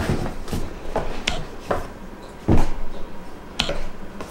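A stiff folded card display and its box being handled on a wooden table: scattered light taps, clicks and paper rustles, with one louder knock about two and a half seconds in.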